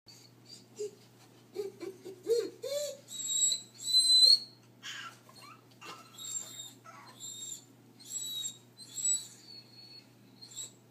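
Doberman whining: a series of thin, high-pitched whines, some lasting about a second, with lower wavering whimpers in the first three seconds.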